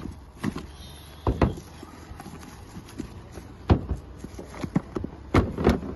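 Handling noise: a series of dull knocks and clunks, several in quick pairs, as phones and plastic-wrapped packages are taken out of a carpeted subwoofer box and set down on phone boxes, over a steady low hum.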